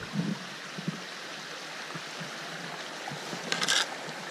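Flowing river water rushing steadily, with a brief louder burst of sound about three and a half seconds in.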